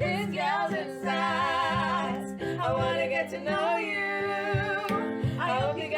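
Intro music: a singer holding long, wavering notes over a steady bass line.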